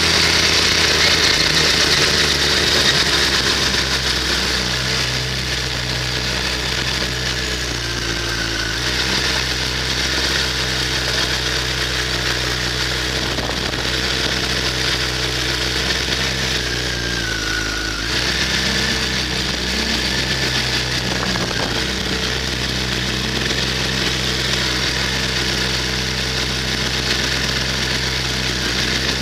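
Kawasaki ZX-10R inline-four engine running low and steady as the bike rolls along at low speed, with wind hiss on the onboard camera fading over the first few seconds as it slows. A little past halfway the engine note drops briefly, then settles to a steady idle.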